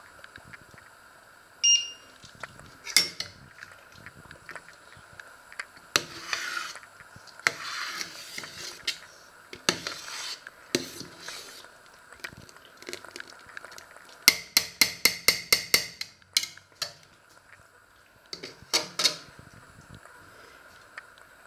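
Wooden spoon stirring, scraping and knocking in a stainless steel pot, with a short electronic beep about two seconds in. About two-thirds of the way through comes a quick run of about ten sharp ringing clicks.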